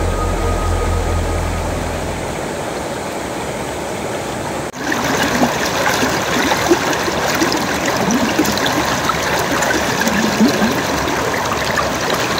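Steady rush of flowing water. It breaks off abruptly about five seconds in and resumes louder and rougher.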